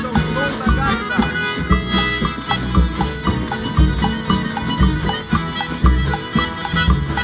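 Live instrumental Brazilian country (caipira) music from a folk band, with a steady low beat under many layered pitched notes.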